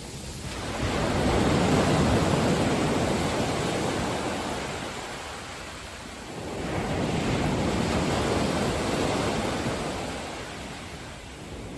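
Sea waves, two slow swells of rushing noise: each builds over about a second, holds, then fades, the second one beginning about halfway through.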